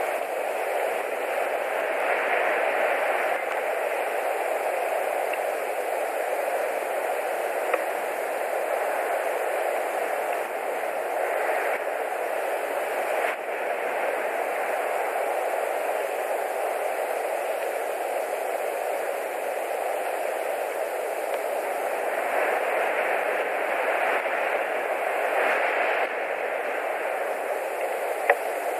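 Wind rushing through the conifer treetop at the nest camera's microphone, swelling in a few gusts, with two short clicks.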